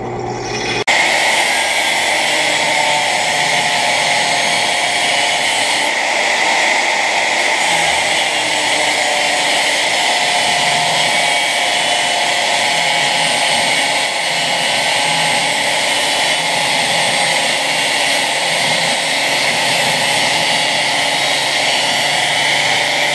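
Handheld angle grinder running steadily under load against a steel part, a continuous high grinding whine that starts abruptly just under a second in.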